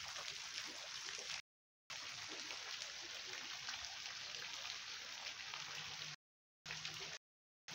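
Running water splashing and trickling, an even rain-like hiss, cut off by three short silent gaps.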